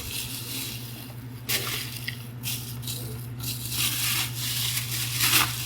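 Plastic toy food pieces rattling and clicking as they are handled and dropped, with several sharp clacks, over a steady low hum.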